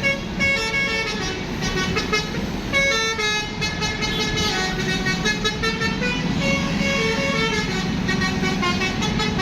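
Telolet bus horn, a multi-tone air horn, playing a quick tune of short stepped notes that jump up and down in pitch, over a steady low hum.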